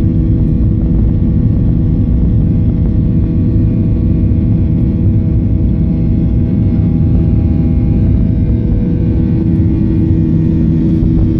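Boeing 737-800's CFM56-7B26 turbofans at takeoff thrust, heard inside the cabin: a steady, loud roar with the fan's 'buzzsaw' drone of many even tones over a low rumble.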